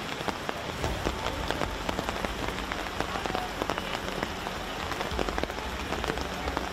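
Heavy rain falling, with many sharp drop hits close by over a steady wash of noise and a low rumble underneath.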